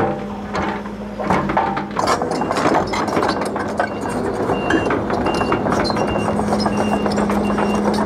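CASE crawler excavator's diesel engine running with a steady hum while the bucket scrapes and knocks through rocky soil, with stones clinking. From about two seconds in, a short high beep repeats about every two-thirds of a second.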